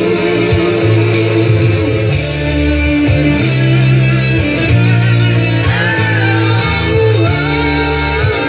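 Music: a guitar-led song with a bass line that changes note about once a second.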